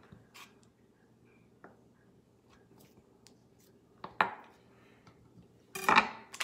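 Light taps of a chef's knife on a bamboo cutting board as imitation crab sticks are cut, with a sharper knock about four seconds in. Near the end comes a louder, brief rustle of the plastic crab-stick package.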